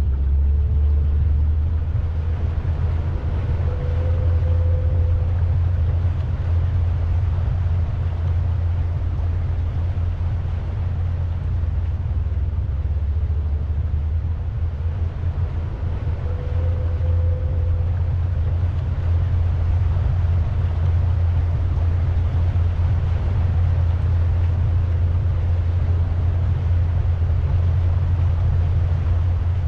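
Pontoon boat under way: its motor runs at a steady low drone, with the steady rush of wind and water over it.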